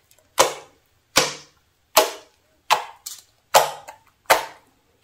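Fingertips pressing into thick green slime, each press giving a sharp pop that fades quickly. Six pops come at an even pace, about one every 0.8 s.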